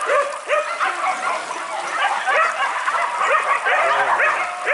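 A pack of boar-hunting dogs baying and yelping without a break, many voices overlapping in quick short cries.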